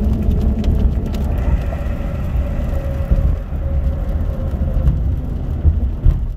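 Steady low road rumble inside a truck's cab driving at highway speed on a rain-soaked road, tyres hissing on the wet surface.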